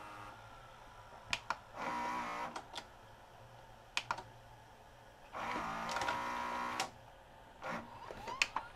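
Sharp VC-H972 VHS VCR's tape-loading mechanism cycling: the loading motor whirs in two short runs, with plastic clicks and clunks from the gears and tape guides between and after them. The loading motor is noisy, and the owner suspects it is slipping, so the machine will not finish its loading cycle.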